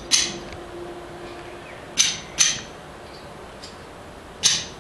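Sharp knocks, mostly in pairs about half a second apart, repeating every two to two and a half seconds over a steady hiss.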